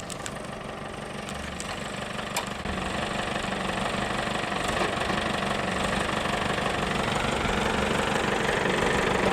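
Vehicle engine idling steadily, growing gradually louder, with a few faint clicks near the start.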